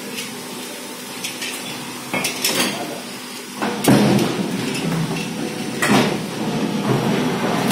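Automatic hydraulic fly ash brick press cycling: a series of metallic clanks and knocks from the mould and steel pallets, the loudest about four seconds in, over running machinery.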